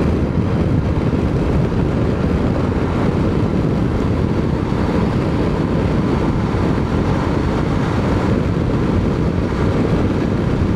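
Steady riding noise from a KTM 890 SMT motorcycle on the move: its parallel-twin engine running under wind and road noise, even throughout with no revving or sudden sounds.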